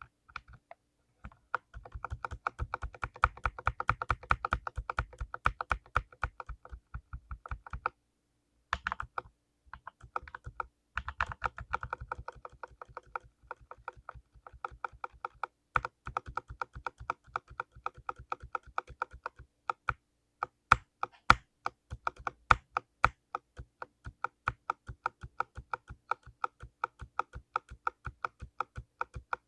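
Typing on a full-size mechanical keyboard with lubed blue switches: a quick, steady run of key clicks, pausing briefly about eight and eleven seconds in, with a few louder strokes around twenty to twenty-two seconds in.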